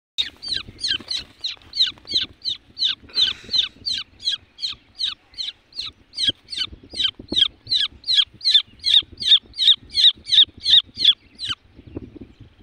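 Francolin (teetar) chick giving a steady series of short, high, downward-sweeping peeps, about three a second, while held in the hand, with faint handling rustle underneath. The peeps stop near the end.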